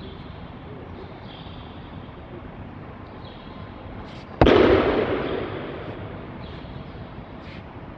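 A single loud thud about four seconds in, as the thrown aikido partner's body lands on the mat in a breakfall, dying away over a second or so in the large hall. A steady hiss runs underneath.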